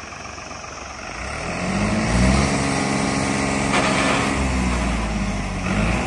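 New Holland 3630 Special Edition tractor's three-cylinder diesel engine rising in revs about a second in, then running steadily under load while pulling a disc harrow in third gear of the medium range.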